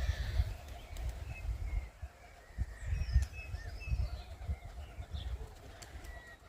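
Scattered short bird chirps over a low, irregular rumble.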